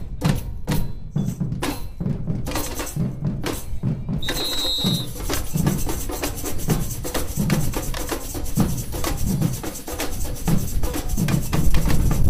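Samba bateria drumming in the street: deep bass drums beating a steady pulse under a dense clatter of higher hand percussion. A short high whistle sounds about four seconds in.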